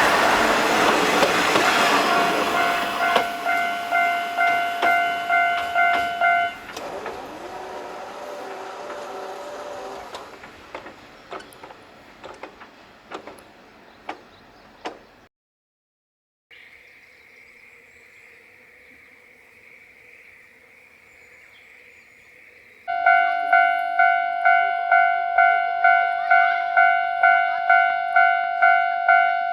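A diesel train passes close by a level crossing while the Japanese crossing alarm bell rings in quick repeated strokes. The bell stops and the train's rumble fades away with scattered clicks of wheels on rail joints. After a quiet stretch the crossing alarm starts ringing again near the end, about two to three strokes a second.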